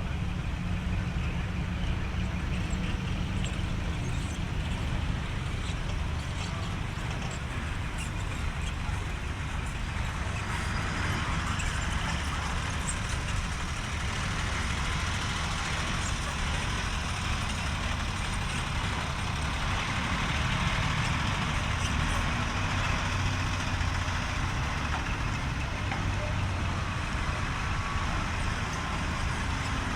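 Truck engine running steadily: a constant low rumble with an even hiss of background noise above it that grows a little stronger about a third of the way in.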